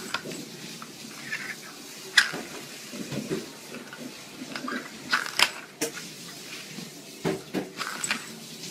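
Small plastic lids clicking and clattering on a wooden floor as a kitten bats them about: a few separate sharp clicks, the loudest about two seconds in and a quick cluster around five seconds in.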